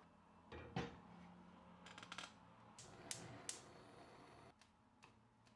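A stainless steel pot set down on a gas stove's iron grate with a single clank a little under a second in, followed by a few light clicks and taps.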